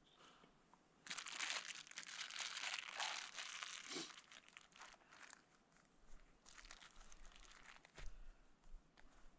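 Dry tinder crumpled and torn by hand to start a fire: dense crackling and rustling for about three seconds, then a shorter spell of it a few seconds later.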